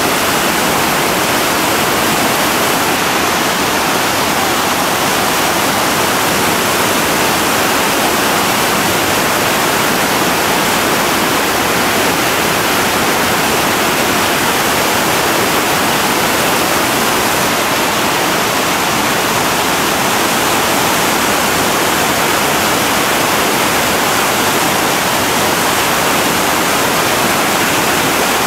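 Large whitewater rapid churning through breaking waves and a hole: a loud, steady rushing of water without a break.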